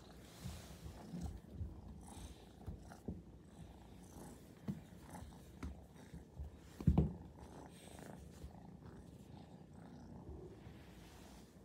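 Maine Coon kitten purring as it is stroked by hand, with a single thump about seven seconds in.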